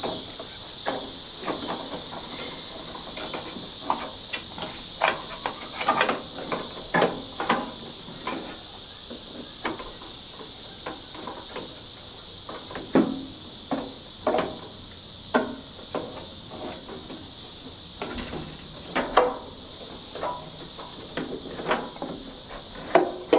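Irregular knocks, clicks and taps of hand work on a Ford F-100 pickup door's window tracks and hardware as they are fitted, some sharper and louder than others, over a steady high hiss.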